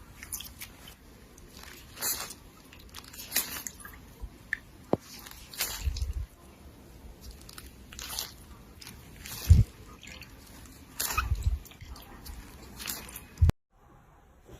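Slime being squeezed and pressed by hand, with irregular crunchy crackles and pops and a few heavier squishing presses, cut off abruptly near the end.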